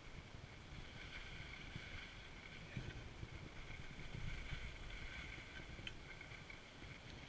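Wind rumbling on an action camera's microphone, with a steady hiss of skis sliding over groomed snow during a downhill run.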